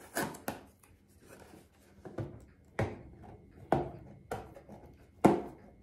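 Hands picking and tearing at the paper wrapping and strong tape of a small gift box: a string of sharp crackles and taps, about seven in all, spaced unevenly.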